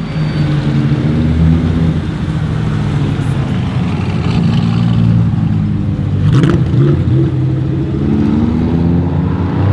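Mercedes-AMG GT S twin-turbo V8 with a custom straight-pipe exhaust, running loud with its pitch rising and falling, and one sharp crackle about six seconds in.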